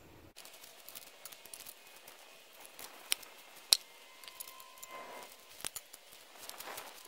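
Sharp clicks and knocks, the loudest two about three seconds in, with rustling of dry leaves underfoot as a cut walnut log is levered and rolled with a cant hook.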